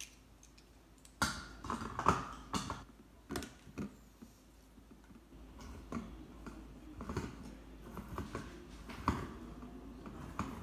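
Cans of beans being opened and handled: a string of sharp metallic clicks and knocks, loudest about one to four seconds in, then softer irregular ticking.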